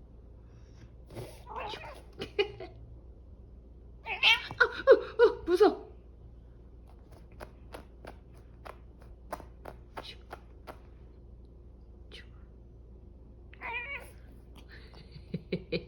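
Domestic cat meowing several times, with a loud run of rising and falling meows about four seconds in and a shorter call near the end, against scattered light clicks.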